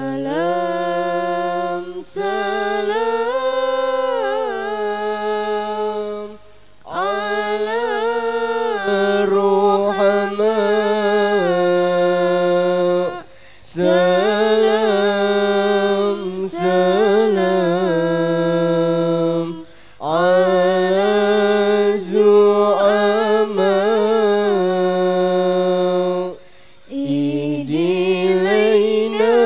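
A girl's single unaccompanied voice chanting Qur'an recitation into a handheld microphone. It runs in long melodic phrases of four to seven seconds, with held, wavering notes, broken by short breath pauses.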